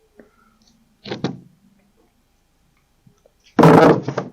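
A plywood panel being handled on a panel sled: a short double knock about a second in, then a louder sliding bump near the end.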